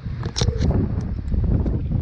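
Wind buffeting the microphone, with a few short splashes about half a second in as a small hooked fish is pulled up out of the shallow creek water.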